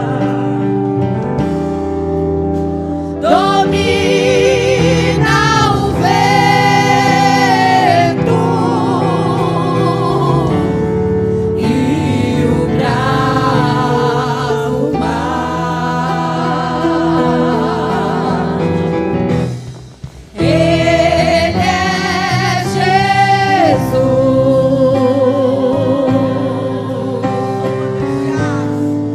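Women's vocal group singing a gospel worship song with vibrato over instrumental accompaniment, with a short break about twenty seconds in.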